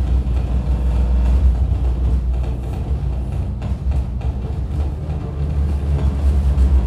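Live harsh noise from a table-top electronics rig of knobs and patch cables: a loud, dense wall of sound with a heavy deep rumble underneath and hiss above, with no breaks.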